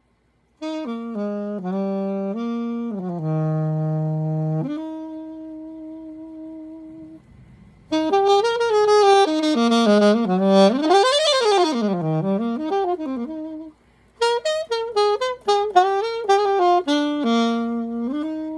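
Alto saxophone with a Theo Wanne Durga mouthpiece playing jazz phrases. It moves through a few stepped notes and a long held note that fades away, then fast runs sweeping up and back down, then a string of short, detached notes that ends on a held note.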